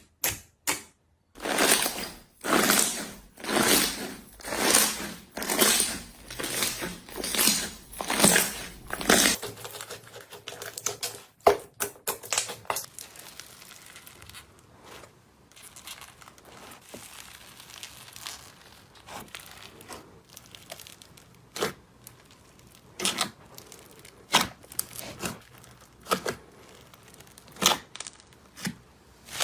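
Slime being squeezed and poked by hand: a run of loud, sharp squishes about twice a second for the first eight seconds or so. Then it turns quieter, with scattered sharp pops and clicks.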